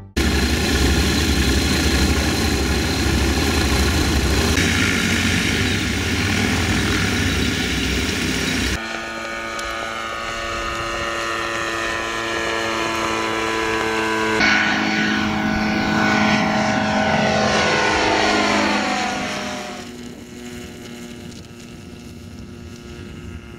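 Propeller aircraft engine: a loud, steady run, then after abrupt cuts a pass with its pitch falling as it goes by, quieter near the end.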